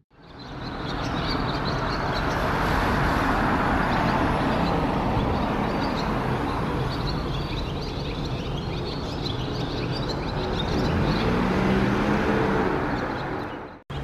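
Barn swallow twittering in short, high chirps over a loud, steady rush of road traffic, which is the louder sound.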